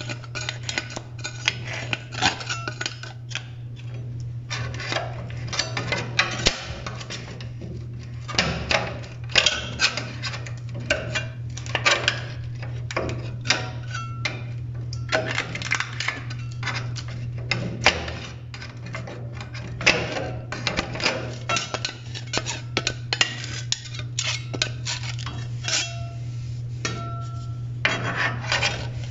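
A metal scraper blade scraping old silicone sealant off the joint between a shower frame and the tiled floor: irregular scraping strokes and sharp clicks of metal on tile and frame, over a steady low hum.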